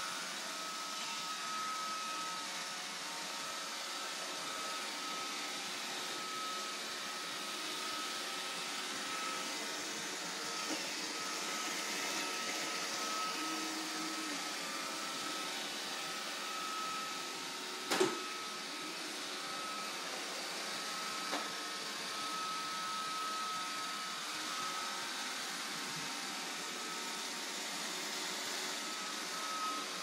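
iRobot Roomba robot vacuum running on a hardwood floor: a steady whir with a thin high whine over it. A single sharp knock comes a little past halfway, and a lighter click a few seconds later.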